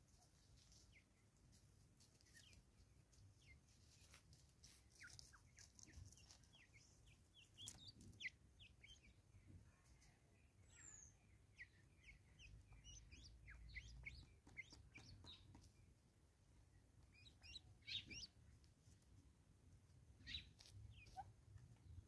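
Faint bird calls: many short, high chirps scattered throughout, busiest in the middle stretch, with a few soft clicks among them.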